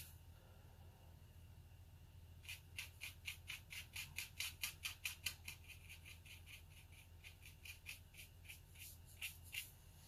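Faint, quick strokes of a watercolour brush on watercolour paper laying in fur: a run of short scratchy flicks, about three or four a second, starting a couple of seconds in and stopping shortly before the end.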